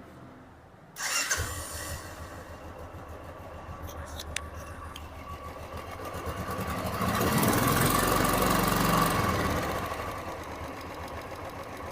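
2015 Royal Enfield Classic 350's single-cylinder engine starting about a second in and idling, revved up for a few seconds about halfway through, then settling back to idle. With the hydraulic tappet replaced and the valve play reset, the earlier tappet tick is gone: the engine sounds quiet, in the mechanic's hearing.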